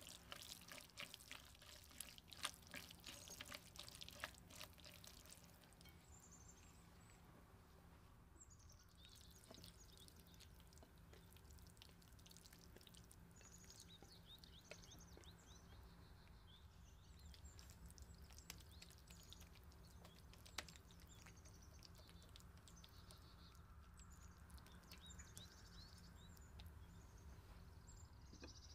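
Silicone spatula stirring a wet chopped eggplant salad in a glass bowl: soft squishing and light clicks for the first few seconds. Faint bird chirps then follow over a low steady hum.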